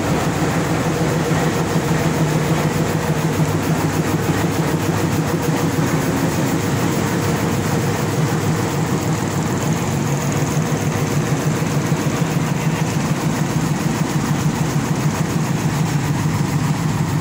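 Diesel locomotive engine idling steadily at close range, a constant loud low hum with no change in speed.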